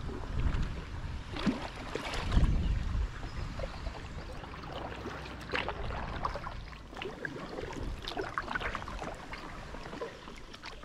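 Kayak paddle strokes on calm canal water: the blades dip and splash at uneven intervals, with drips running off between strokes. A low rumble about two seconds in is the loudest part.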